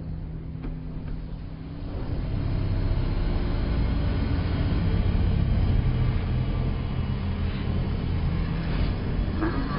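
Deep machine rumble of the Vita-Ray apparatus powering up, a film sound effect; it swells about two seconds in and then holds steady and loud.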